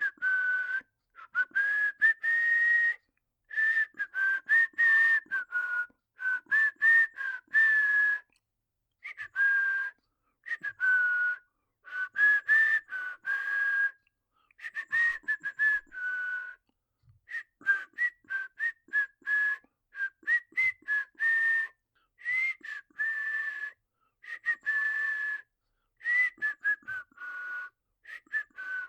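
A man whistling a tune through his lips, a single clear tone moving up and down in short phrases with brief breaths between them.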